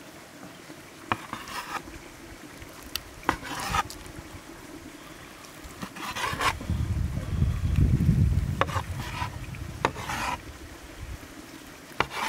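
A large knife slicing through boiled tongue on a wooden tray: sharp clicks as the blade strikes the wood, each followed by short rasping, scraping strokes. A low rumble in the middle is the loudest sound.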